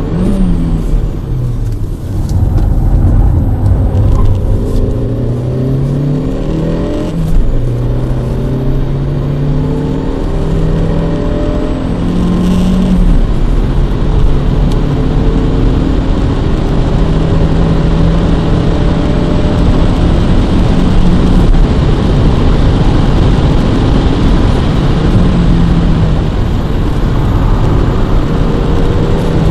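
Škoda Rapid's 1.2 TSI turbocharged four-cylinder petrol engine, heard from inside the cabin under hard driving: the revs climb and drop through several gear changes in the first few seconds, then hold steadier, over constant tyre and road noise.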